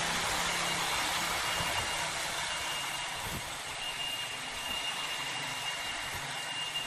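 CPI DTR 150 motorcycle engine running under load as the bike climbs a steep ramp, with low engine tones under a steady hiss.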